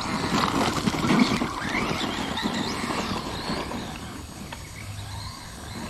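Electric RC car driving on a 3D-printed nylon spur gear, its motor and gears whining up and down in pitch as it is throttled. Louder for the first three seconds or so, then it eases off.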